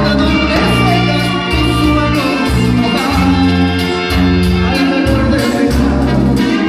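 Live band playing a Latin song, with sustained bass notes and a steady percussion beat.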